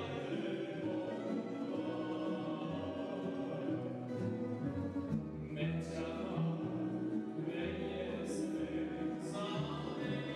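A man sings a traditional Serbian song, accompanied by small plucked lutes and a string bass.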